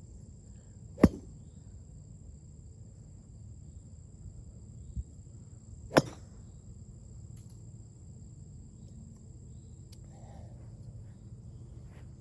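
Two sharp cracks of a golf driver striking a ball off the tee, about five seconds apart, the first the louder.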